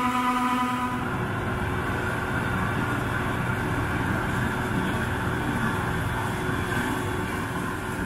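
Massey Ferguson 850 combine running. A steady whining tone from the unloading auger stops about a second in and gives way to the combine's steady running noise as it harvests corn.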